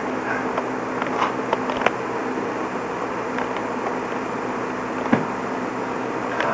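Steady hiss and low hum of a home camcorder's recording noise, with a few faint knocks and clicks about a second in, near two seconds and just after five seconds.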